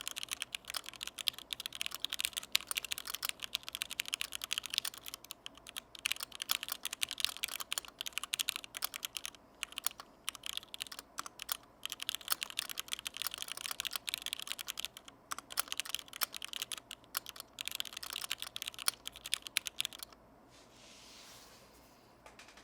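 Typing on a Duck Blackbird mechanical keyboard with lubed vintage Cherry MX Black linear switches in a stainless steel plate: a fast, dense run of keystrokes with a few brief pauses, stopping about twenty seconds in, leaving only a faint hiss.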